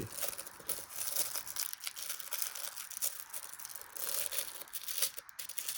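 Packaging crinkling and rustling in quick irregular crackles as it is handled and pulled open while unboxing a shoe.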